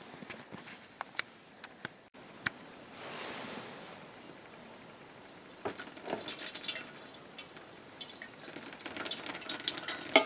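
Stainless steel thermos and its metal cup being handled and tea poured: small metallic clicks and knocks, a short stretch of pouring about three seconds in, and a sharp clink near the end.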